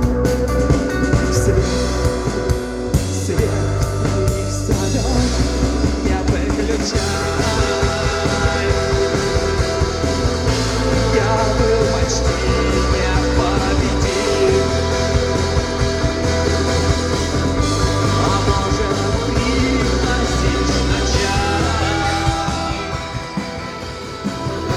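Live rock band playing an instrumental passage: sustained electric guitars over bass and drums, with a psychedelic rock sound.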